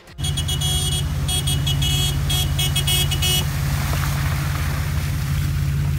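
Minivan engine running steadily under load as it drives through a flooded mud hole, with water splashing and hissing around it. A high, choppy whine cuts in and out over the first three seconds or so.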